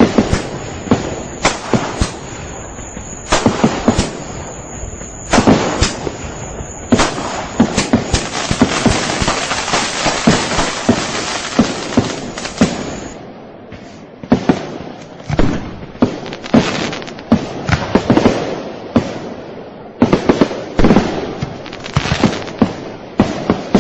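Fireworks going off in quick succession: many sharp bangs mixed with crackling. The bangs thicken into a dense crackle near the middle, ease off briefly, then come again as separate reports.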